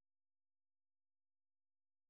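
Near silence: the audio track is silent.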